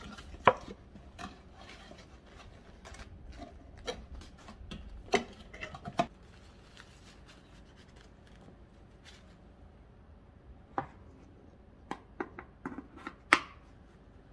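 Sharp taps, clicks and light rustling from handling a cardboard tea box and a stainless steel tumbler with a strainer insert, in two clusters separated by a few quiet seconds, with the loudest click near the end.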